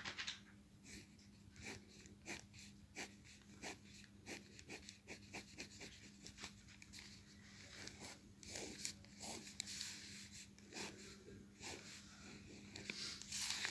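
Pen scratching on paper in short, faint strokes, a few a second, as lines are hatched and drawn, over a steady low hum.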